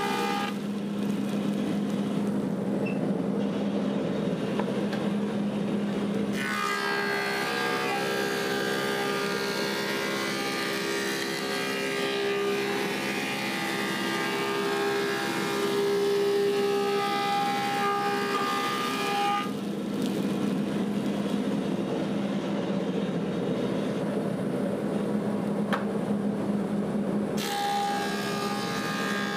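Woodmaster 725 planer with a helical cutterhead running with a steady hum. Its cutterhead chews through a board for about thirteen seconds, from about six seconds in, and it takes up cutting again near the end as the next pass goes through.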